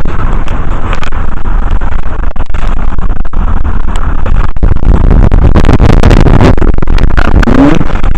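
Strong wind buffeting the microphone: a loud, continuous low rumble with constant gusty crackles.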